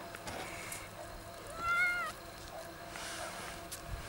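Domestic cat meowing once, a short call of about half a second near the middle that rises slightly and then falls away.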